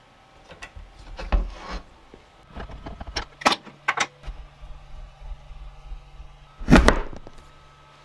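A Manfrotto 244 friction arm with a welded steel bench dog being handled and set into a dog hole in an MDF bench top: scattered clicks, metal rattles and knocks. The loudest is a heavy knock about seven seconds in.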